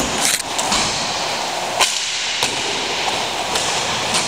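Several sharp cracks of hockey sticks and the puck striking during inline hockey play, over a steady hiss of rink noise.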